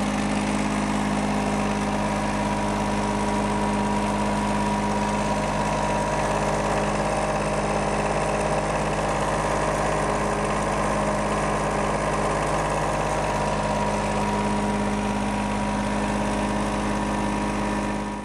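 Denyo DPS-50SSB soundproofed diesel-engine screw air compressor running steadily, an even, unchanging engine hum.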